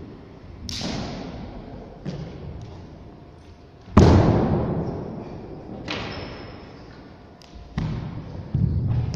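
Thuds and slaps from a Changquan (Long Fist) wushu routine: feet stamping and landing on a carpeted gym floor and hands striking, about seven sharp hits. The loudest comes about four seconds in, and several follow close together near the end. Each hit rings on in the echo of a large hall.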